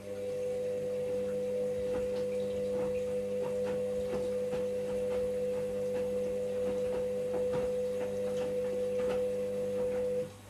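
Washing machine motor running with a steady hum, starting abruptly and cutting off shortly before ten seconds later, with faint scattered clicks from the machine.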